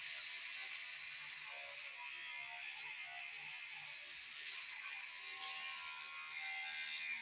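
Electric toothbrush running while teeth are brushed: a steady buzzing hiss that cuts off suddenly at the very end.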